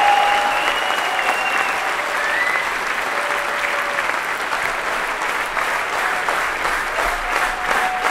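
Large crowd applauding in a tent: dense, steady clapping, with a few long drawn-out calls heard over it near the start and again near the end.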